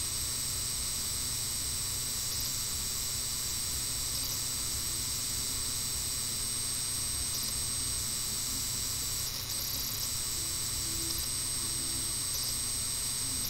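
Steady background hiss with a low hum and a faint high-pitched whine; no distinct sound event.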